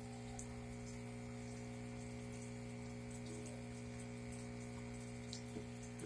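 Steady hum of an aquarium pump, with faint bubbling and trickling of water in the tank.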